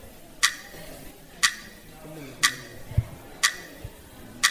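Quiz countdown timer ticking once a second, five even, sharp ticks, counting down the contestants' time to answer.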